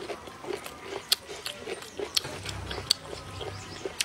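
Close-up eating sounds: irregular wet smacks and crisp little clicks of a person chewing a mouthful of braised fish and cooked greens.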